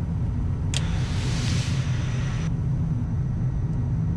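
Steady low rumble of airflow and jet engines inside a Gulfstream business jet's cockpit on final approach, with a click and a short hiss about a second in.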